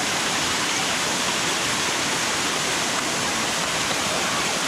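Waterfall rushing steadily close by: a continuous, even hiss of falling water.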